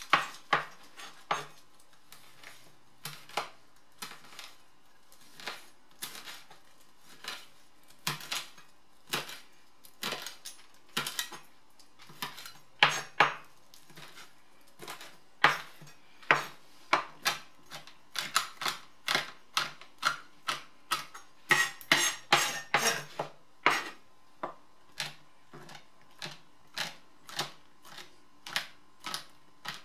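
Chef's knife chopping rosemary and red chili on a plastic cutting board: sharp knocks of the blade against the board, spaced out at first and coming faster, several a second, from about halfway on.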